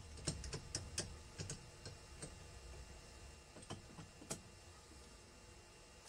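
Faint, scattered light clicks and taps of metal engine parts being handled as a new cylinder is fitted over the crankcase studs. The clicks bunch up in the first two seconds, come again twice around four seconds in, then stop.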